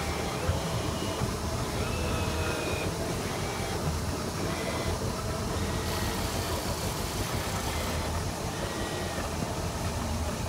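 Steady low rumble of a Tiara 2700 Open fishing boat's engine running, with wind and water noise over the open lake.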